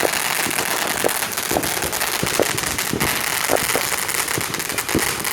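Consumer firework going off with a steady, dense crackle of many rapid small pops.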